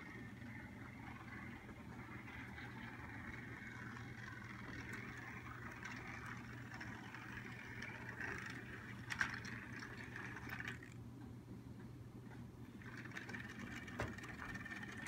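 N scale model train running on the layout: a faint, steady motor whine with a low hum beneath it. The whine fades for a moment past the middle and then returns, with a few sharp clicks, the clearest about two-thirds of the way in.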